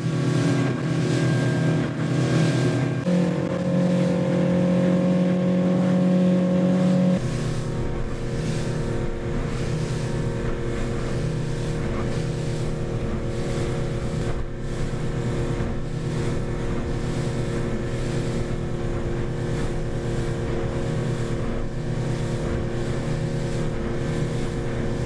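Boat engine running at speed, heard from inside the closed pilothouse cabin with hull and water noise. The engine note shifts about three seconds in and again about seven seconds in, then holds steady.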